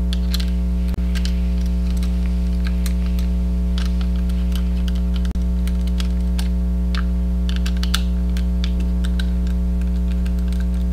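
Irregular small clicks and scrapes of a flat-blade screwdriver turning stiff self-tapping screws out of the base of a DDC water-cooling pump, over a loud steady low electrical hum.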